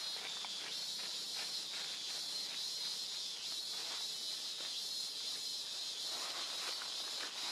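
Steady high-pitched insect chorus in forest, with faint scattered rustles and soft clicks.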